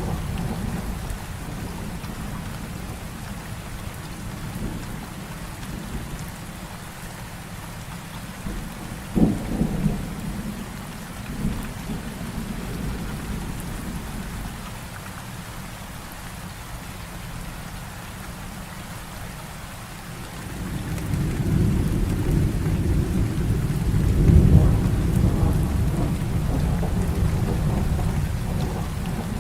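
Heavy rain falling steadily during a thunderstorm, with sharp thunder cracks about a third of the way in and a long, deep rumble of thunder building over the last third.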